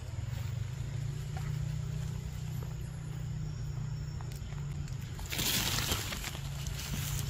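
Steady low rumble with scattered faint clicks, and a short rustle of leaves and branch about five seconds in as a macaque shifts on its perch.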